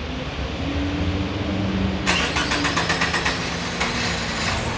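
A 1994 Subaru Impreza L's flat-four engine being started for the first time in years, on a newly fitted fuel pump and battery. It is cranked and starts, with a fast, regular clatter in the middle.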